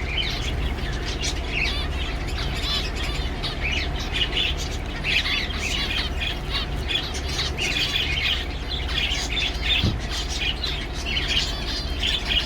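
Zebra finches calling: a steady stream of short, quick calls repeated throughout, over a low steady hum.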